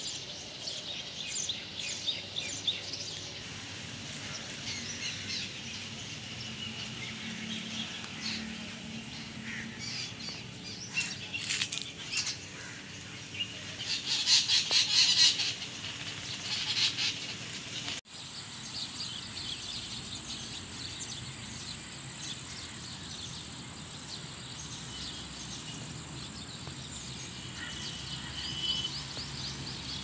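Many birds chirping and calling at once, with a loud dense burst of chirps about halfway through. After a sudden break a little past halfway, the chirping is sparser.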